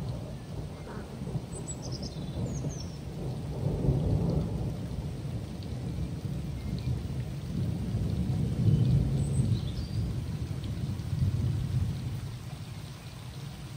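Thunder rumbling in several long rolling swells over steady rain, easing off near the end.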